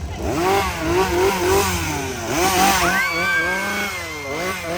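Two-stroke chainsaw engine revved in quick repeated throttle blips, its pitch rising and falling several times a second. About three seconds in, a high held tone joins it.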